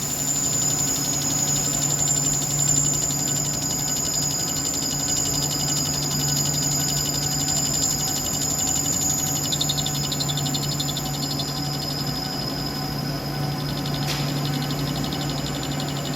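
CNC lathe running steadily, with a low hum and a steady high-pitched whine.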